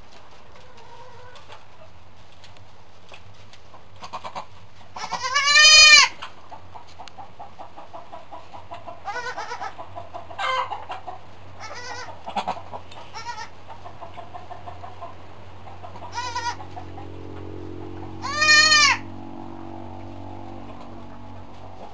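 Goats bleating: two loud bleats, each rising then falling in pitch, about five seconds in and again near the end, with shorter, softer calls between them.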